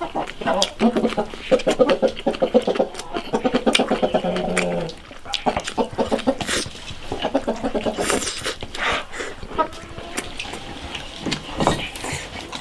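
Chickens clucking in a run of short, repeated calls, loudest in the first five seconds and again a little past the middle, over the wet smacking and chewing of a mouthful of fatty braised pork.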